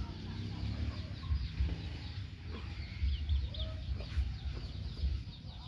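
Chickens clucking and peeping in short, scattered calls, over a steady low rumble.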